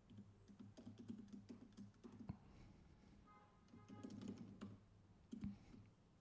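Faint typing on a computer keyboard: a quick run of keystrokes over the first two seconds or so, a second run about four seconds in, and a single louder key stroke near the end.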